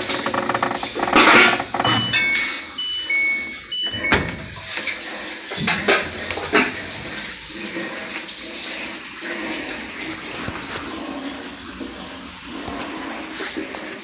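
LG top-load automatic washing machine on its spin cycle, with water rushing out to the drain and a noise from deep inside the machine, which the technician traces to a defective drain motor. A few short high beeps come about two to three seconds in, and a sharp knock about four seconds in.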